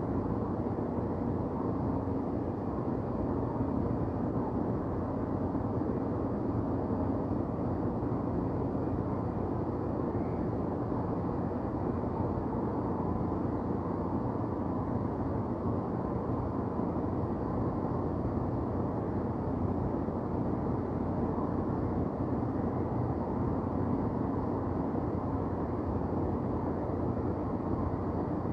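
Steady downtown city ambience: an even, low rumble of distant traffic with no single event standing out.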